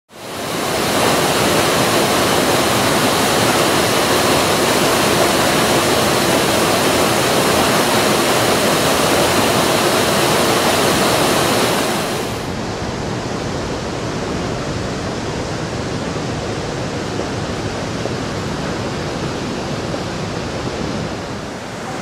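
Steady rush of water falling over a stone fountain ledge. It is loud for about twelve seconds, then drops suddenly to a quieter, duller rush.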